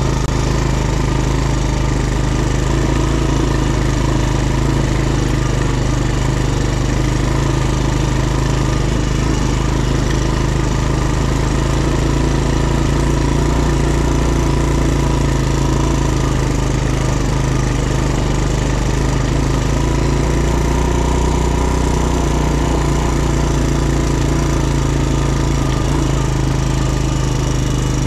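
ATV (quad) engine running at a steady, unchanging pitch, with no revving up or down.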